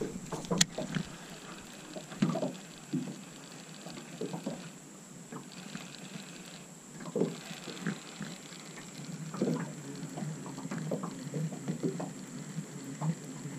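Baitcasting reel being cranked to retrieve a topwater lure, with faint water lapping and small splashes and scattered light clicks and knocks; one sharp click about half a second in.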